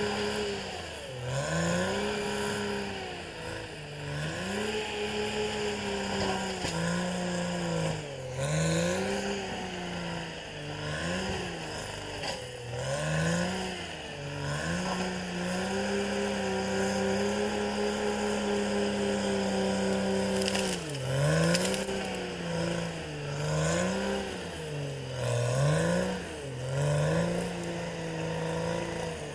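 Caterpillar D6R XL bulldozer's diesel engine working hard, its pitch sagging and recovering again and again as the blade pushes earth and brush.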